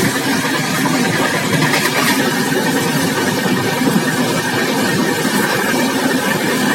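Passenger express train running, heard from its open exit door: a loud, steady rumble and rush of the wheels on the track.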